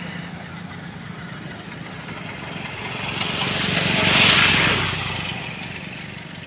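A motor vehicle's engine passing by: it grows louder to its loudest about four seconds in, then fades away.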